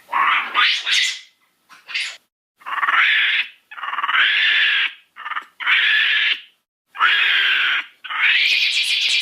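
Calls of Godinotia, an early primate, as voiced in Walking With Beasts: a run of about eight high-pitched calls, each a third of a second to a second long, with short gaps between them. Several sweep upward in pitch, the first and last most of all.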